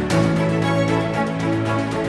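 Background music: held chords over a quick, even pulse, changing chord right at the start.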